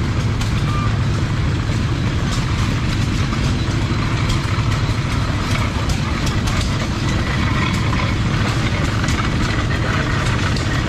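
Antique stationary gas engines running with a steady low drone and a dense rapid clatter. In the second half the rattle of a belt-driven corn sheller being fed ears of corn joins in.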